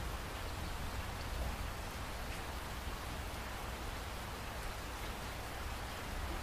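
Steady hiss with a low hum underneath, even throughout, with no distinct events standing out.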